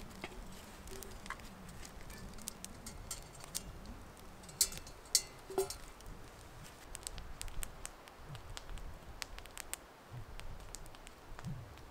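Scattered light clicks and crackles, with a few sharper clicks about five seconds in, from dry fusilli pasta and a metal pot being handled beside a wood campfire.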